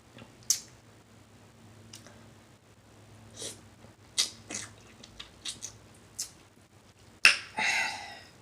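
Close-up mouth sounds of someone eating shrimp: lip smacking and wet chewing as a series of short, sharp clicks, with a louder smack and a brief breathy sound near the end.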